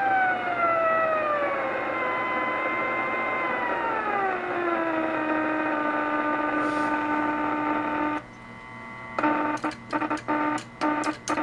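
Spark-gap transmitter fired by a car ignition coil, heard through an AM radio receiver as a buzzing tone with overtones over hiss. The tone slides down in pitch for the first five seconds or so as the spark rate is lowered, then holds steady. About eight seconds in it cuts off, then comes back in short on-off bursts keyed by a telegraph key.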